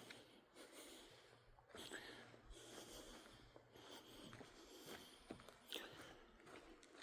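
Faint sounds of a person hiking a forest trail: breathing and soft, irregular footsteps.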